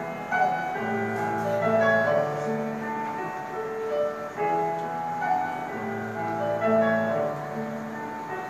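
A guarania played live: a slow melody with piano to the fore, over long held low notes from an instrumental ensemble.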